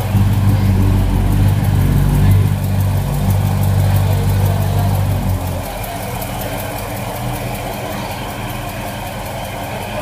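A car engine idling with a steady low hum, which drops off sharply about five and a half seconds in to a quieter steady hum.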